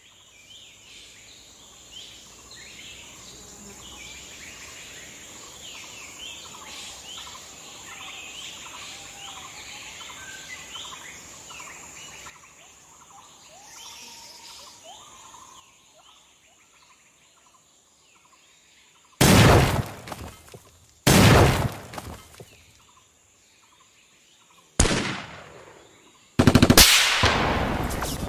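Jungle ambience of many chirping birds over a steady high whine, fading out about halfway through. After a few quieter seconds come four loud gunshot blasts, each with a ringing tail, the last running straight into more firing near the end.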